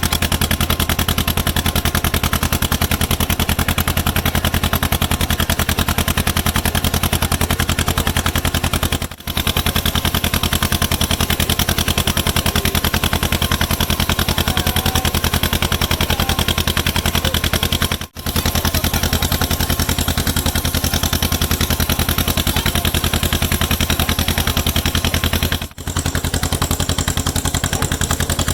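An engine running steadily with a fast, even chugging beat, cutting out briefly three times.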